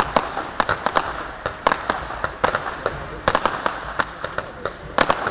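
Fireworks crackling: rapid, irregular sharp cracks and pops, several a second, over a steady hiss.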